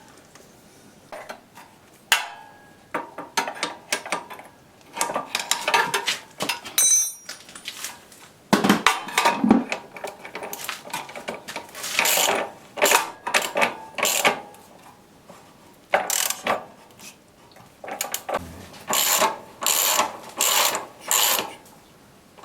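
Metal wrench working the rear axle and chain-adjuster nuts of a motorcycle, making irregular metallic clicks and clinks. Near the end the clicks come as a run of evenly spaced ratcheting strokes as a nut is turned.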